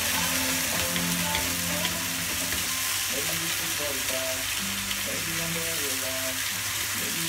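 Sliced zucchini sizzling steadily as it sautés in a frying pan on a gas hob, with a few faint ticks in the first couple of seconds as it is stirred. Soft background music plays underneath.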